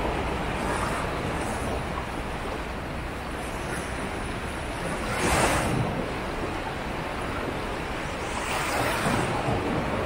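Sea surf washing onto the beach in a steady roar of breaking waves, with one louder wave crashing about halfway through and another swell near the end. A low rumble of wind on the microphone runs underneath.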